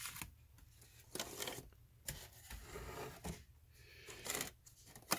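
Boxed model cars being handled and shifted, cardboard and plastic packaging giving several short scrapes and rubs.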